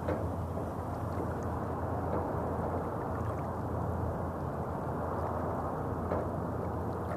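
Small waves lapping on a pebble lakeshore, with a few soft clicks, over a steady low hum of road traffic.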